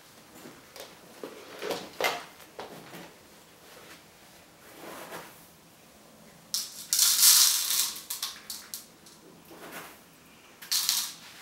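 Gloved hands rummaging in a box of dry ice under a cloth, picking out pieces: scattered clicks and scrapes of dry ice pieces, with a louder burst of rustling and scraping about seven seconds in that lasts around two seconds.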